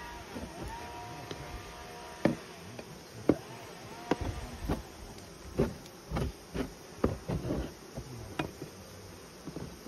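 Honeybees buzzing around an open hive, single bees droning close past. Irregular sharp knocks and scrapes run through it, a hive tool scraping wax off the hive woodwork.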